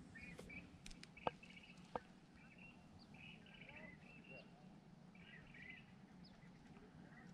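Faint birdsong: short chirping trills repeating every second or so over a quiet outdoor hush, with two sharp clicks about a second and two seconds in.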